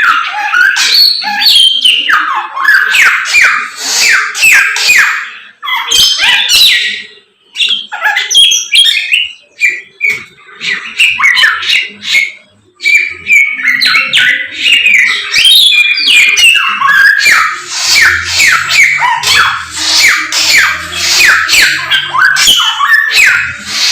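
A caged samyong songbird singing in full voice ('gacor'): loud, rapid runs of repeated, bending notes. The song breaks into shorter phrases with pauses from about a quarter to halfway through, then runs on densely again.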